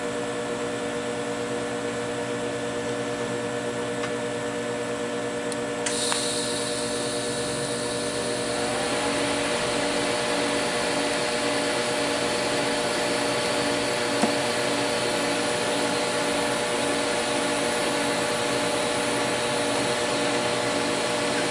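TIG welding arc struck about six seconds in, then burning steadily with a hiss and buzz as a washer is tacked onto a steel shaft with 309L stainless filler wire. The welding machine hums underneath throughout.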